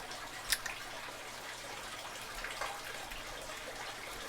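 Faint scratching and light clicking of a Peterson snake rake being worked against the pins of a Master Lock padlock, with one sharp click about half a second in and a few softer ticks a couple of seconds later.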